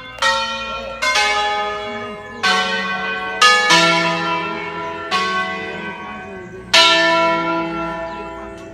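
A ring of five bronze church bells cast by De Poli in 1949, tuned to a major scale on E, played by hand by bell-ringers in a slow melody. About seven single strikes at different pitches follow one another, each note ringing on and fading as the next sounds.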